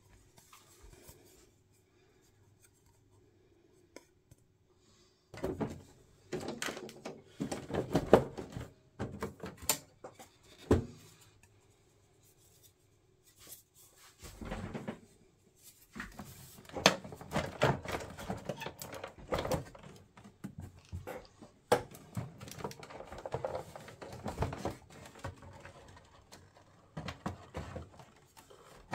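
Plastic clicks, knocks and scraping as the case and parts of a Sharp GF-9494 boombox are handled and taken apart by hand. After a second or so it falls nearly silent for a few seconds, then the handling noise picks up again.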